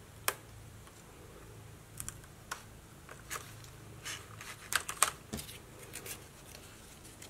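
Scattered light clicks and taps of stiff cardstock pieces being handled and pressed together on a cutting mat, busiest about five seconds in, over a faint steady low hum.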